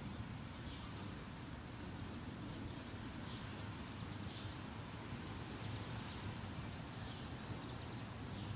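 Outdoor ambience under a stormy sky: faint bird chirps now and then over a steady low hum and background noise.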